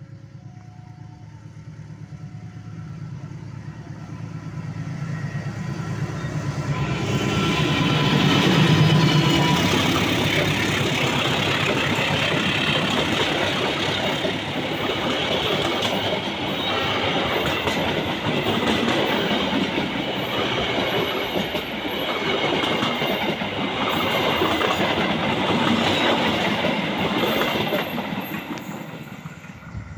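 Diesel-electric locomotive pulling a passenger train up a grade under heavy load, its engine running hard and smoking. It grows louder as it approaches and is loudest as it passes about nine seconds in. The passenger coaches then rumble and clatter over the rail joints for nearly twenty seconds and fade away near the end.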